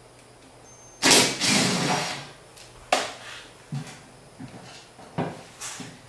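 Cordless driver running for about a second, backing out a screw at the bottom of a front-load washer's front panel, followed by a sharp click and a few lighter knocks.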